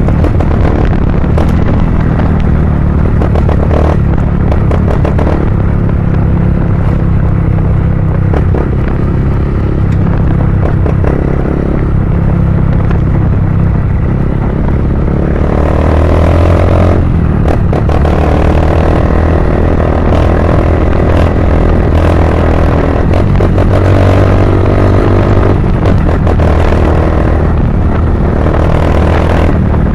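Honda CG 160 Cargo's single-cylinder four-stroke engine running loudly through a Pro Tork Competition aftermarket exhaust, with a deep rumble. The revs rise in a few swells, about halfway through and again later.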